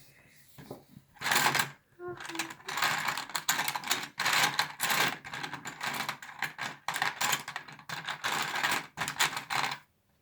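Small plastic Lego Technic pieces clicking and rattling as they are handled, in quick runs of clicks with short pauses.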